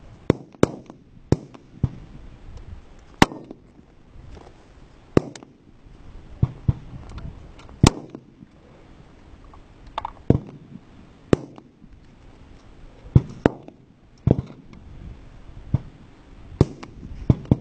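Fullbore target rifles firing along a firing line: sharp, single shots at uneven intervals, roughly one a second, some loud and close and others fainter, several followed by a short echo.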